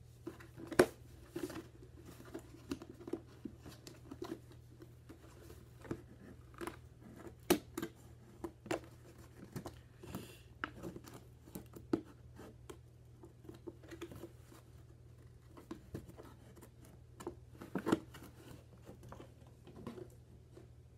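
Scissors snipping through a doll box's plastic and cardboard packaging, with irregular clicks and crinkles as the packaging is handled. The sharpest snips come about a second in and again near the end.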